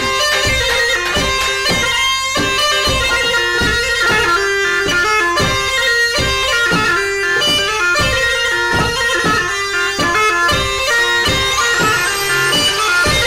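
Background music: a shrill wind-instrument melody over a steady drum beat, in the manner of Turkish folk music.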